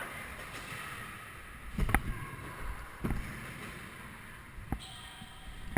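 Scooter wheels rolling on pavement, a steady rumble, with a sharp clack about two seconds in and a duller thump a second later, like the deck or wheels hitting the ground.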